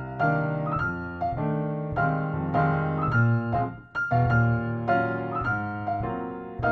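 Background music: a light piano tune played note by note, with a short break about four seconds in.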